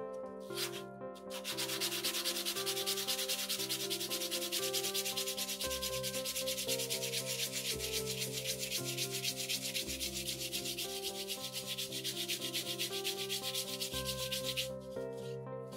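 A cured resin piece being sanded by hand on sandpaper: rapid, even back-and-forth scratching strokes. One short stroke comes just after the start, then steady sanding from about a second in, with a brief pause near the end.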